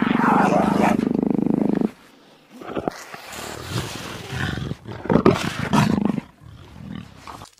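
Jaguar growling: one long, loud growl for the first two seconds, then after a short pause a string of shorter growls and grunts.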